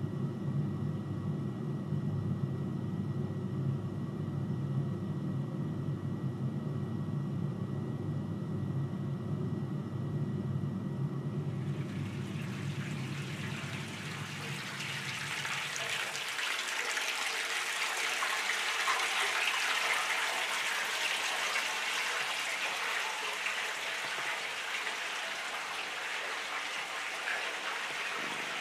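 A steady low hum for the first dozen seconds, then an even rushing noise like rain or running water rises and carries on as the hum fades out.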